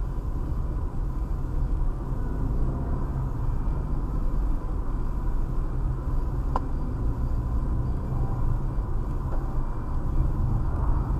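Steady low rumble of a car's engine and tyres at low city speed, heard from inside the cabin. A single sharp click comes about six and a half seconds in.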